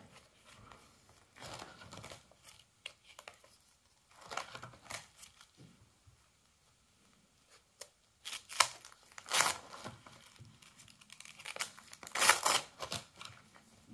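Plastic binder pages of trading cards rustling and crinkling as they are handled and turned, in a run of short rustles, the loudest a little past halfway and again near the end.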